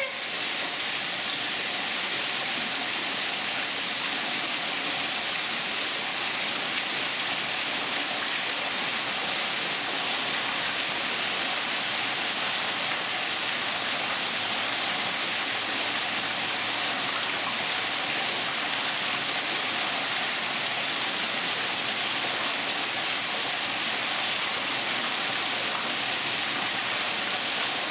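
Steady, even rushing noise of falling water, a constant hiss with no breaks.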